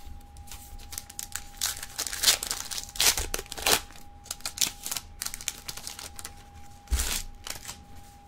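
Foil wrapper of a trading-card pack crinkling and tearing as the pack is opened by hand, in a run of short irregular crackles and snaps.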